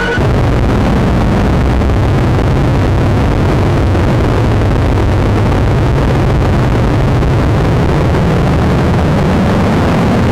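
Harsh noise music: a loud, dense wall of distorted noise with a heavy low rumble, cutting in abruptly in place of clear synthesizer tones and holding steady.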